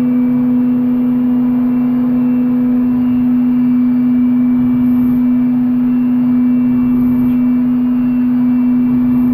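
Okuma MU-400VII five-axis machining center's spindle running at a steady high speed, a single even whine, over a hiss of coolant spray, while a CoroDrill 860-NM drills aluminium.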